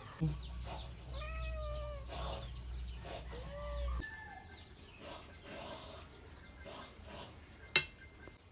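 Two drawn-out animal calls, each rising then falling in pitch, over a low hum that cuts off about four seconds in. A single sharp click near the end.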